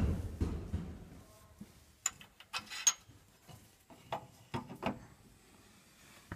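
Lower door of a Viadrus Hercules DUO cast-iron boiler opened with a heavy thud, followed by light metallic clinks and rattles as the grate lever and bar are handled.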